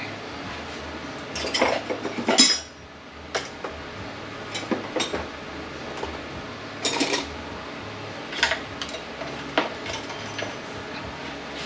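Metal transmission parts and hand tools clinking and knocking together as they are handled during disassembly. The clinks come irregularly, several in quick succession about two seconds in, then singly.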